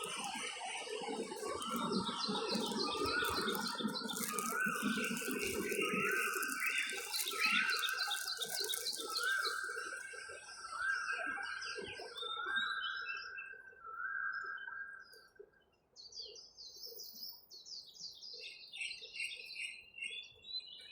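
Birdsong: one bird repeats a short whistled note about once a second, with higher chirps from other birds over it and lower sound underneath for the first few seconds. The repeated song stops about three-quarters of the way through, leaving scattered faint chirps.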